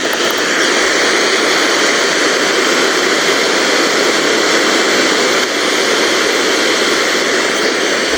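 Steady radio static: the even hiss of an FM receiver tuned to a weather radio channel with no usable signal coming through.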